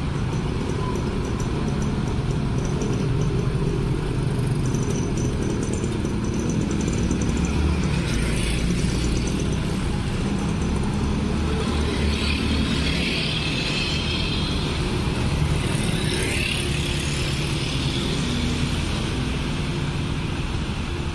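Motor scooters and cars driving past one after another, engines running and pulling away. This makes a continuous traffic noise that swells as individual vehicles go by.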